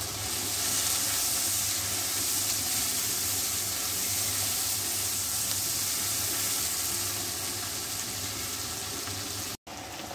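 Tomato-onion masala with added spices sizzling steadily in hot oil in a frying pan as it is stirred with a spatula. The hiss cuts out briefly near the end.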